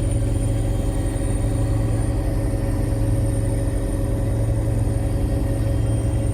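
Helicopter turbine engine and rotor running with a steady, unchanging drone, topped by a thin high whine.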